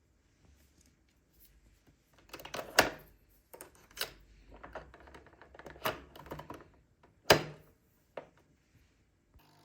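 A run of irregular clicks and knocks, like objects being handled and set down, with sharper knocks about three seconds and about seven seconds in.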